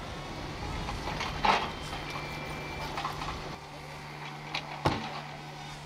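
A motor running steadily, a low even hum, with two short knocks, about one and a half and five seconds in.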